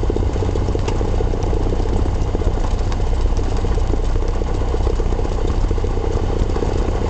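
Cessna 172SP's four-cylinder Lycoming engine and propeller running at low power while taxiing, heard from inside the cockpit as a steady, rapid low throb.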